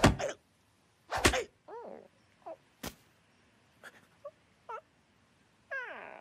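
Cartoon slapstick sound effects and a bird character's voice: a loud thud at the start and another about a second later, then a sharp click, with short squeaky vocal noises from the cartoon bird in between. It ends in a longer falling cry.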